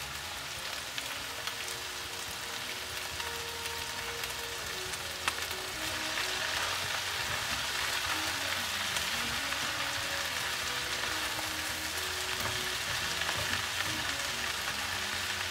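Chopped Chinese (garlic) chives sizzling as they stir-fry in hot oil in a nonstick sauté pan, with a spatula turning them. The sizzle grows louder about six seconds in, and there is one sharp tap a little past five seconds.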